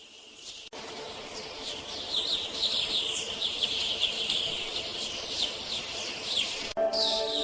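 Birds chirping: a dense run of short, quick, falling chirps over a steady hiss, starting abruptly. Near the end it cuts to music with held notes.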